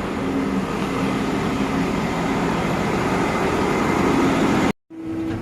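Tractor engine running steadily. The sound breaks off abruptly near the end and is followed by a different steady hum.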